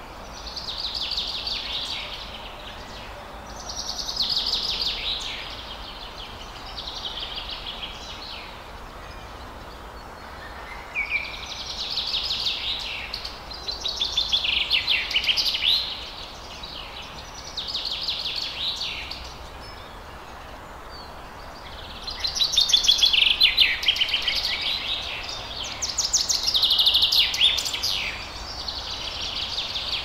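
Songbird song: short, high warbling and trilling phrases of a second or two, repeated every few seconds over a steady background hiss.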